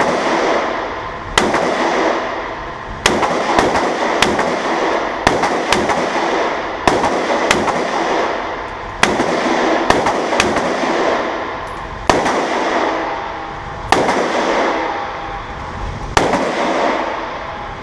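AR-15-style rifle firing a string of single shots at uneven spacing, roughly one every second or two, each crack followed by a long echoing decay.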